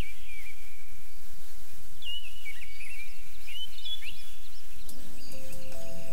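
Birds chirping in short, quick, repeated calls over a steady hiss of background noise; soft sustained music tones come in about five seconds in.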